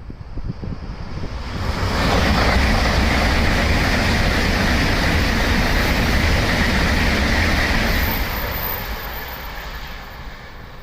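Tokaido Shinkansen train passing through a station at speed without stopping: a rushing roar that builds over about two seconds, holds for about six, then fades away.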